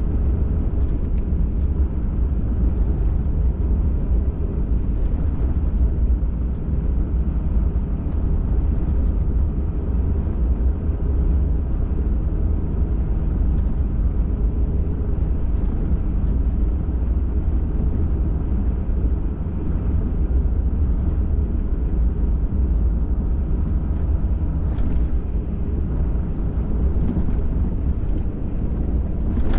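Steady low rumble of a Ford F-150 Raptor pickup driving along a trail, engine and road noise, with a few faint ticks or rattles near the end.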